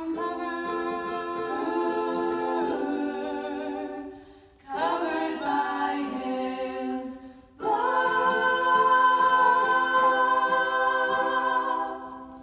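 Several teenage girls' voices singing a cappella in harmony into microphones, in three phrases with long held notes. The last phrase is a long held chord that ends the song and fades near the end.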